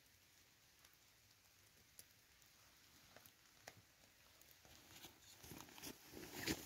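Faint scattered drips tapping in the quiet forest, then footsteps rustling through wet grass and moss, coming closer and growing louder over the last couple of seconds.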